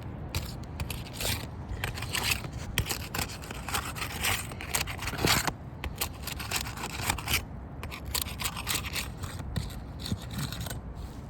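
Asphalt roof shingle tabs having their sealant strips broken loose: a run of irregular scrapes and crackles as the tabs are worked free.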